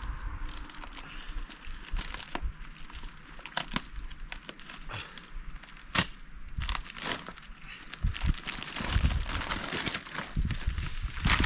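A newly lit fire starter made of dryer lint and petroleum jelly in a toilet paper roll, crackling and crinkling as it burns among kindling, with irregular sharp snaps and a few dull thuds of wood being handled.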